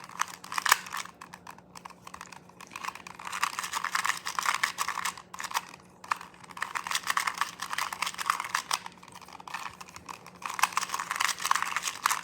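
2x2 Rubik's cube being turned fast during a timed speedsolve: rapid plastic clicking of the layers in flurries, with short pauses about two, six and ten seconds in.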